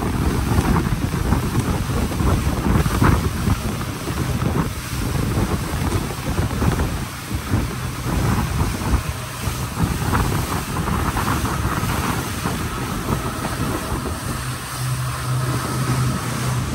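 Speedboat running at speed: engine noise mixed with rushing water and spray off the hull, and wind buffeting the microphone. A low steady engine hum comes through more plainly near the end.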